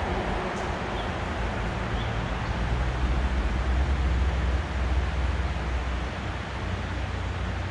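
Steady rushing of river water, with low, uneven rumbling buffets of wind on the microphone.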